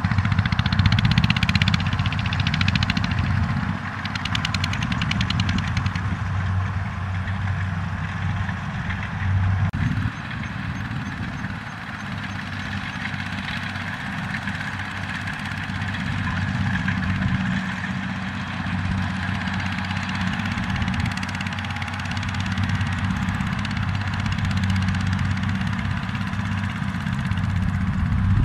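Two-wheel walking tractor engine running steadily under load while pulling a trailer heavily loaded with rice sacks through soft, muddy field ground.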